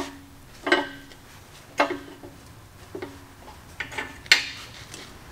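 Metal clinks: about six sharp taps at irregular intervals, each ringing briefly at the same pitch.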